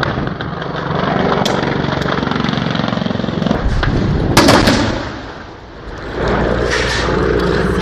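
Helicopter engine and rotor drone, with a sudden loud burst of gunfire a little past halfway that dies away over about a second, and another burst starting at the very end.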